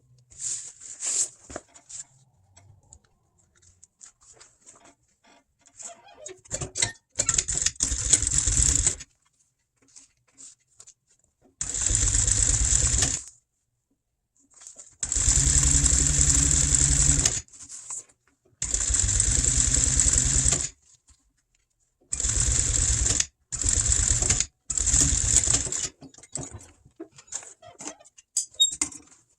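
Sewing machine stitching the pieces of a boat seat cover together in about seven short runs of one to two seconds each, with pauses between them while the material is handled.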